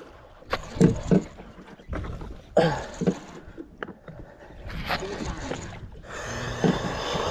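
Angler jigging a metal jig with a jigging rod and baitcasting reel. The rod strokes and reel cranks make a rhythm of paired knocks and rustles about every two seconds, with a rush of hiss near the end.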